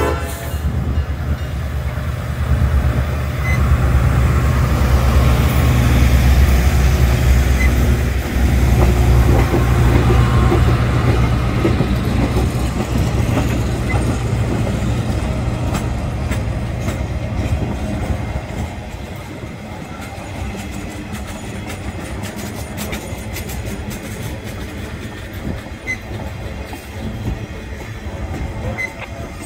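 Railroad weed spray train cars rolling past on the rails, a steady heavy rumble of wheels on track with clicks over the rail joints. The rumble is loudest for the first half and eases off after about eighteen seconds.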